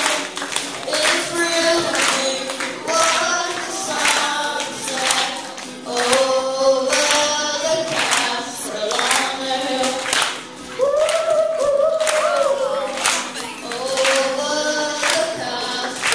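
A boy singing a song live into a microphone with acoustic guitar accompaniment, the melody held in long sung notes. Sharp hits recur about twice a second under the voice, keeping a steady beat.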